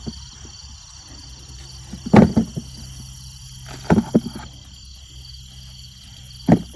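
Insects chirping steadily under a low engine hum, broken by three short, loud sounds about two seconds apart.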